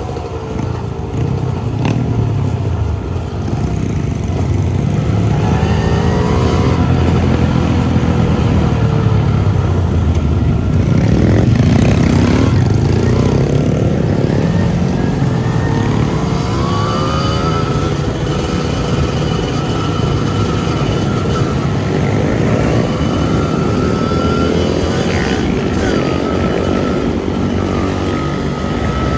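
Trail motorcycle engines running and revving, their pitch rising and falling again and again.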